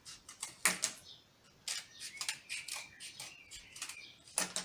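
Scissors snipping through a flattened cardboard toilet-paper tube: several separate sharp cuts with short pauses between them, as a petal strip is cut off.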